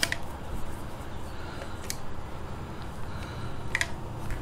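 Remington 870 pump shotgun being loaded: a few sharp clicks about two seconds apart as shells are pushed into the tube magazine, over low handling noise.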